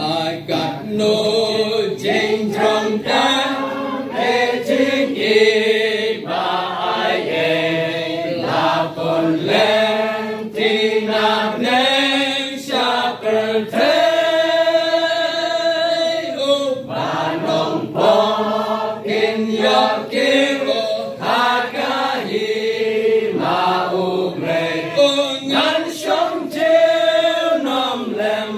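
A congregation singing a hymn together in long held phrases, led by a voice on a microphone.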